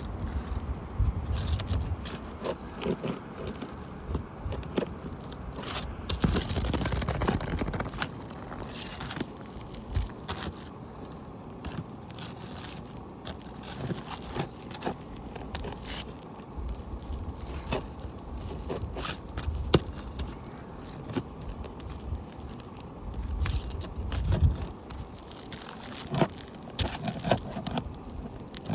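Tools scraping and tapping under asphalt roof shingles as roofing nails are pried out to free a damaged shingle, with irregular scrapes and scattered sharp clicks.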